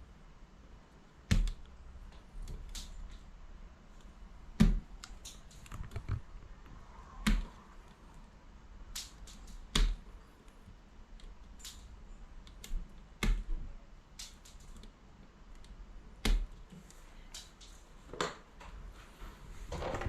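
Hand wire stripper clicking and snapping as the insulation is cut and pulled off the cable cores, a sharp snap every two to three seconds with softer clicks between.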